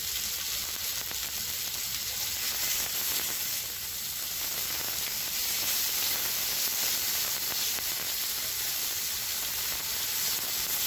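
Chicken pieces sizzling on a Kenwood electric health grill: a steady crackling hiss of fat and juices on the hot plate as the chicken nears being cooked through.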